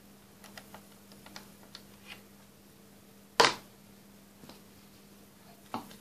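Light clicks and taps of hands handling wires and toggle switches on a model railway control panel, with one sharp knock about three and a half seconds in and a smaller one near the end, over a faint steady hum.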